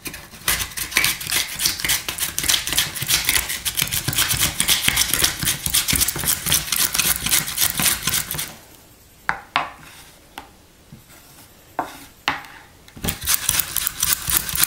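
Russet potato being sliced on a handheld mandoline slicer, pushed in a plastic gripper: rapid back-and-forth scraping strokes over the blade. After about eight seconds the strokes stop for a few seconds, with only a few scattered clicks, then start again near the end.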